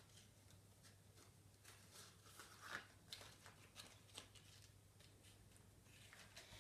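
Near silence with a few faint small clicks and rustles of pencils and their plastic pack being handled, the loudest a little under three seconds in, over a faint low steady hum.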